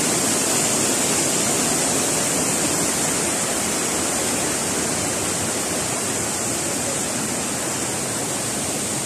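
Steady, loud rush of water cascading over boulders in a rocky stream at the foot of a waterfall.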